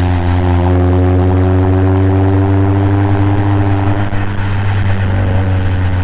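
Exhaust note of a 2021 Mazda 3 Turbo's 2.5-litre turbocharged four-cylinder through a Corksport cat-back with a Vibrant resonator, on the move with a steady low drone. Some higher tones climb slowly over the first four seconds, then fade.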